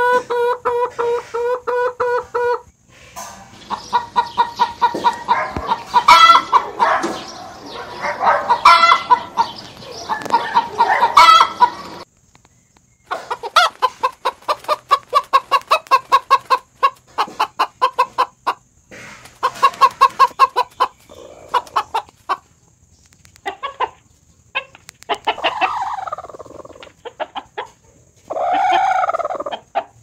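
Broody hen sitting on her eggs, clucking in long, fast runs of short clucks with brief pauses. Near the end comes one longer call that rises and falls.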